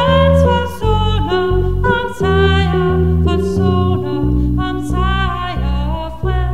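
A woman singing a Danish hymn with piano and bass accompaniment.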